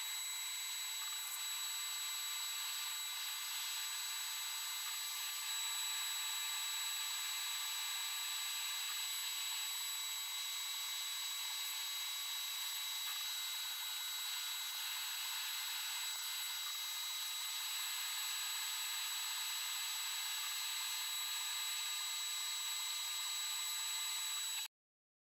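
CNC router thread-milling holes in a plastic block: the spindle gives a steady high whine, while the axis motors hum in tones that shift in pitch every few seconds as the tool moves. The sound cuts off suddenly near the end.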